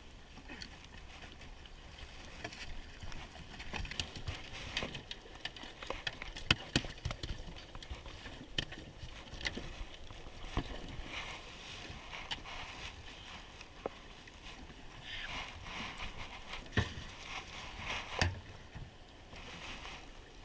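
Scattered knocks and clicks of gear being handled in a small jon boat on the water, over a faint steady background hiss.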